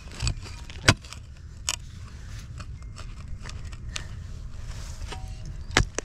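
Steel shovel blade digging into rocky dirt around a buried cast iron pipe: a few sharp clinks and scrapes, the loudest about a second in and another near the end.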